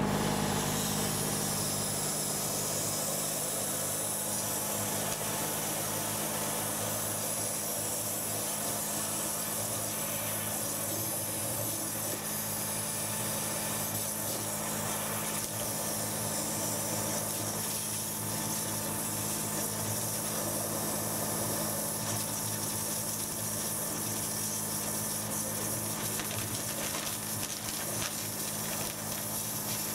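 A high-pressure sewer jetter at about 4,000 PSI drives a Warthog nozzle through a clear 4-inch acrylic pipe packed with debris. There is a steady hiss of water spray over the low hum of the jetter's engine, unchanging throughout.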